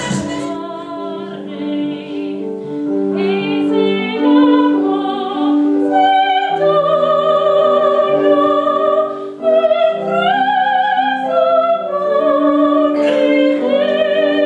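Operatic-style solo singing with a wide vibrato over a held instrumental accompaniment, starting suddenly at a cut.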